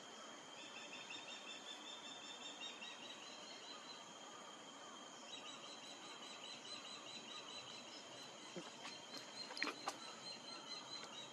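Faint steady trilling of insects at several high pitches, layered and continuous, with a few sharp clicks near the end.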